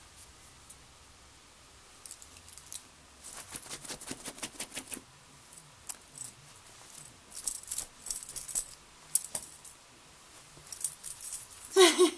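Clusters of quick light clicks and rattles from a pocket knife being handled, with a short pitched sound, like a voice, near the end.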